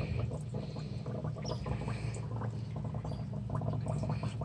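Water gurgling and bubbling with many small crackling pops as a glass jar is emptied under the water of a tadpole tank, over a steady low hum.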